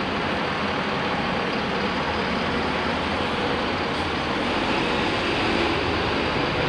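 Large coach bus's diesel engine running as the bus moves off at low speed, a steady engine noise that grows a little louder in the second half.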